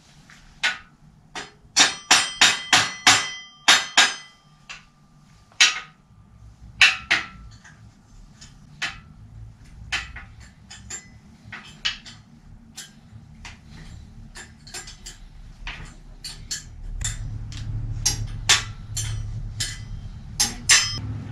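Hammer blows on steel, driving a bicycle crank cotter pin home: a quick run of about a dozen sharp strikes with a metallic ring early on, then scattered lighter taps. A low rumble rises near the end.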